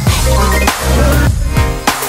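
Electronic background music with a heavy beat cuts in suddenly. It has deep kicks that fall in pitch and sharp drum hits about every half second.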